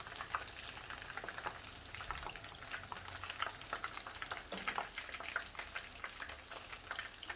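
Doritos-crumb-coated chicken pieces frying in hot oil: a steady sizzle full of small pops and crackles.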